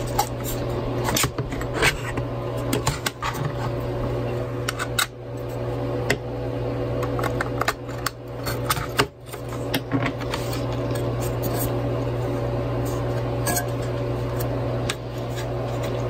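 A metal pry tool scraping and clicking around the seams of a plastic external hard-drive enclosure as its snap clips are popped loose: many sharp clicks and scrapes, most of them in the first ten seconds. A steady low hum runs underneath.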